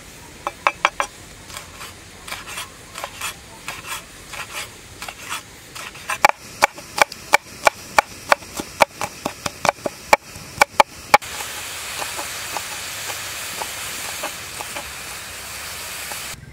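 Kitchen knife chopping garlic and red chillies on a wooden cutting board: scattered knocks at first, then a fast, even run of about three to four chops a second. A steady hiss takes over for the last five seconds or so.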